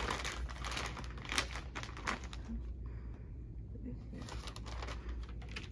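Clear plastic bag crinkling as it is handled, in irregular bursts that are densest over the first two seconds, then sparser rustling of packaging near the end, over a steady low hum.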